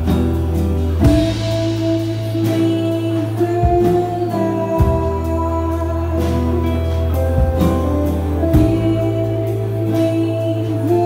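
Live band playing a song: strummed acoustic guitar, electric guitars and bass guitar, with drum hits and a lead singer.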